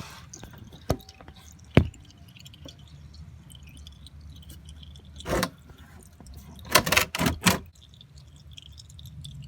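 Metal hand tools clinking and scraping on the oil drain plug as it is worked loose with an 8mm hex: two single sharp clicks near the start, a brief scrape about halfway, then a quick cluster of clinks near the end.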